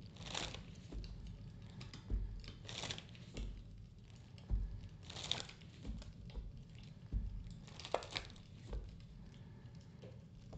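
Deck of oracle cards being shuffled by hand: short papery swishes of the cards sliding together, coming at irregular intervals.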